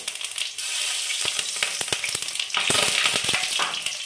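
Cumin seeds sizzling and crackling in hot mustard oil, a steady hiss with many small pops as the seeds splutter; the sizzle swells briefly past the middle.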